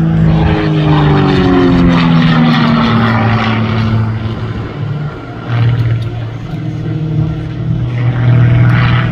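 Game Bird GB1 aerobatic plane's six-cylinder Lycoming engine and propeller running hard overhead. The pitch drops over the first three seconds, then settles into a steadier lower drone that dips briefly around the middle and swells again near the end.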